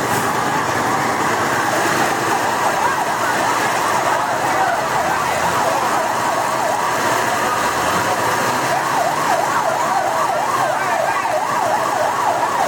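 Emergency-vehicle siren in a fast up-and-down yelp, plainest in the second half, over a steady noisy background.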